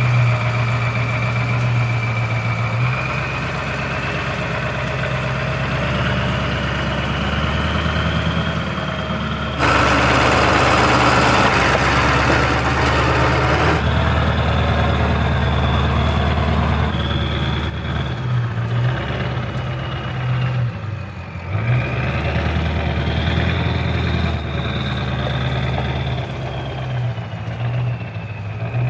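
1996 Ford F350's 7.3 Powerstroke V8 turbodiesel working at low revs as the truck crawls over rock, with a high turbo whine that rises and falls with the throttle. Near the middle there is a harsher noisy stretch of about four seconds.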